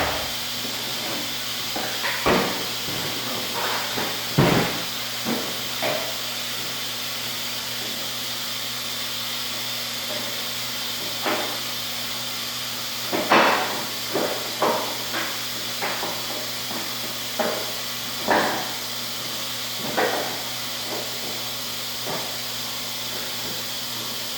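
Scattered knocks and clicks as a wheel is worked back onto a laundry cart, over a steady hiss and low hum of machines.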